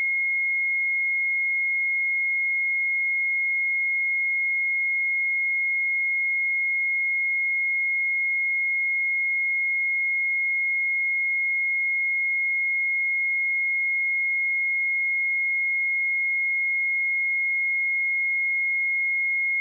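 A steady 2154 Hz sine-wave test tone: one pure, high-pitched beep held at constant pitch and level, with no other sound.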